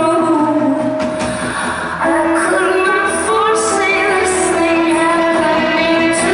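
Live rock band playing, with a woman singing, recorded from within a concert audience; the music drops back slightly and comes in fuller again about two seconds in.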